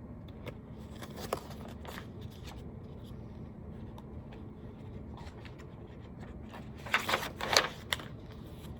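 Pages of a picture book being handled and turned: scattered light clicks and taps, then a short rustle of paper about seven seconds in, over a faint steady room hum.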